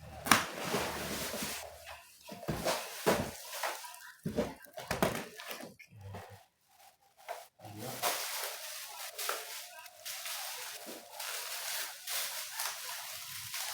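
Packaging being handled: irregular rustling and scraping with scattered knocks and thumps, with a short pause in the middle.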